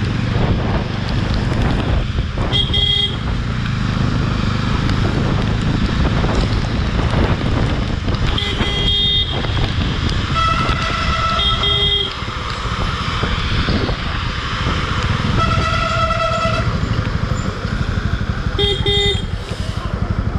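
Vehicle horns honking in about six short blasts of two different pitches, over the steady low rumble of the motorcycle's engine and wind in traffic.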